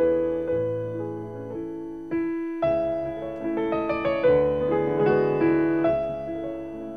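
Background piano music: a melody of single notes that strike and fade, with a short lull about two seconds in.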